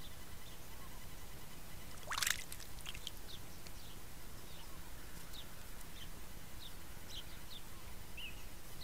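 A Sacred Kingfisher splashing once into a water trough, a brief loud burst about two seconds in as it plunges in to bathe. Short high chirps from small birds sound on and off throughout.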